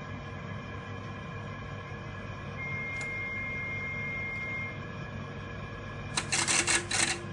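Steady hum of a running HF linear amplifier and station gear while it is transmitting, with a thin high steady tone for about two seconds in the middle. Near the end comes about a second of loud scratchy noise in several quick pulses.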